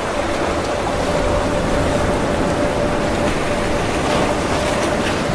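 Sea surf breaking and washing up a sandy beach, a steady rushing noise, with a faint steady hum under it.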